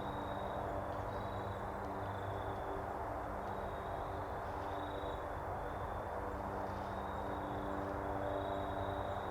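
Steady outdoor ambience: an even hiss with a high, thin trill that comes and goes about once a second, over a faint low steady hum.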